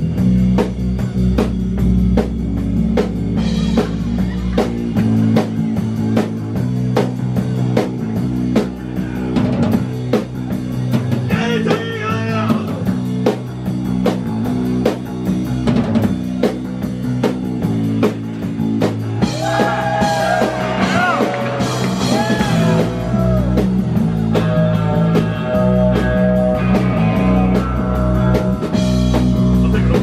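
Live rock band playing loud: a steady drum-kit beat, electric bass and electric guitar, with singing in places.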